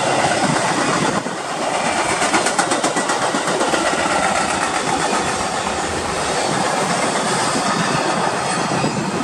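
Rail cars rolling past at speed: the bilevel cars of a commuter train close by and a double-stack intermodal freight train behind, their wheels making a steady rumble. A rapid clickety-clack of wheels over the rail joints runs about two to four seconds in.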